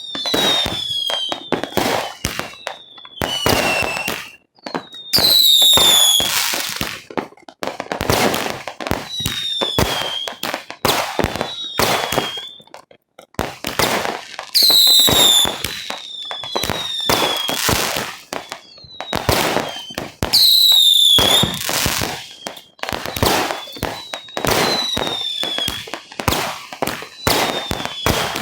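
Fireworks going off in rapid succession: repeated short whistles that drop slightly in pitch, amid a continuous run of pops and bangs. There are louder stretches every few seconds.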